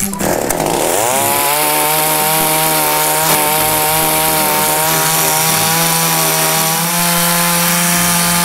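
Chainsaw engine revving up in the first second, then held running at a steady high speed, easing slightly about seven seconds in.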